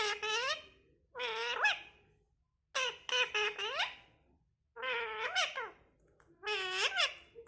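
A talking parrot calling out five short speech-like phrases, each with a high pitch that bends up and down, separated by brief pauses.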